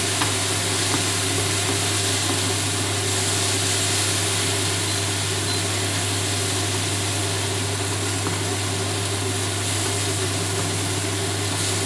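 A tomato and vegetable sofrito with a little broth sizzling steadily in a frying pan as it is stirred with a slotted spatula, with a few faint scrapes, over a steady low hum.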